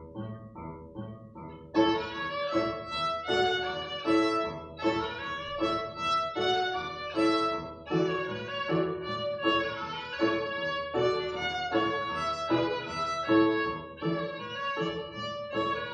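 Upright piano playing a repeated chordal accompaniment alone, then a child's violin comes in about two seconds in with a bowed melody over it, in a piece on a Ukrainian folk tune.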